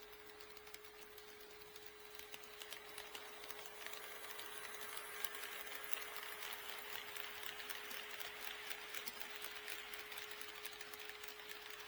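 HO-scale model train running past on the track, its wheels and motor making a fine rapid clicking and rattling that grows louder over the first few seconds, with a faint steady hum.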